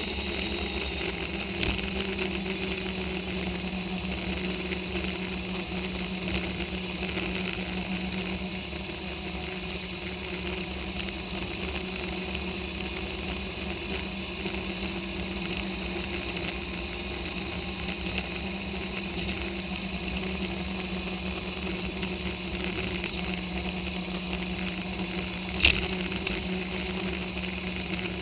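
Motorcycle engine running at a steady cruising speed, with road and wind noise. A single sharp tap or knock sounds near the end.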